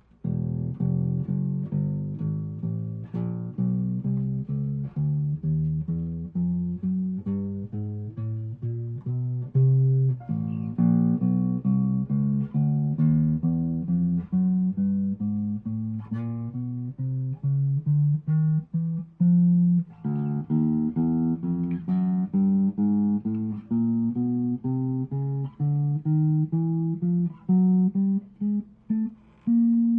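Tokai Hard Puncher P-bass, an 80s Japanese-made electric bass, played alone: single plucked notes, about two to three a second, in runs that climb steadily in pitch and then start again lower.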